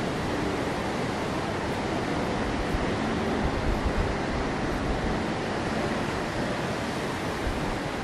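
Rough surf breaking over a rocky shore: a continuous rush of white water, swelling a little about halfway through.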